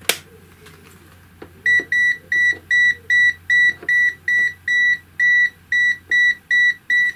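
Owon OW18E multimeter's non-contact voltage detector beeping, a high, evenly repeated beep about three times a second, starting about a second and a half in, signalling that it senses live mains voltage on the hot plate's wire. A single click comes right at the start.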